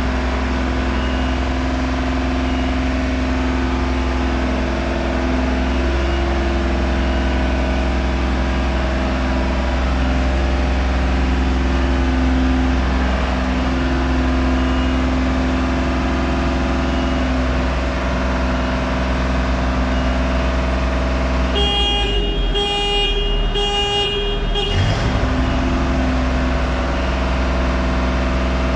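Steady drone of construction machinery running, with held tones that shift in pitch now and then. About twenty-two seconds in, a pulsing alarm beeps a few times over roughly three seconds.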